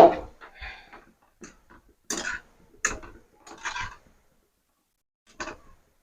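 A metal spoon knocking and scraping in a pan of frying oil as gulab jamun balls are turned, several short clinks and scrapes with pauses between, the loudest at the very start.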